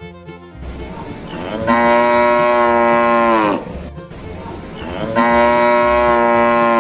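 A cow mooing: two long moos, each dropping in pitch as it ends.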